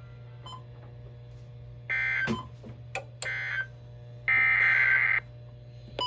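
Emergency Alert System SAME data bursts over NOAA Weather Radio, starting about two seconds in: three short bursts of data tones, each lasting about a second, with a few sharp clicks between the first two. They are the end-of-message code closing the severe thunderstorm warning, heard over a steady low hum from the receiver.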